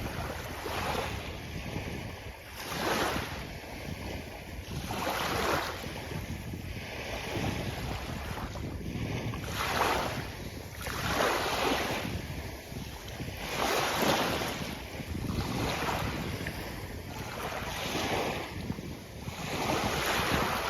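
Sea waves breaking and washing up a beach, a rushing surf that swells and falls back every two to three seconds.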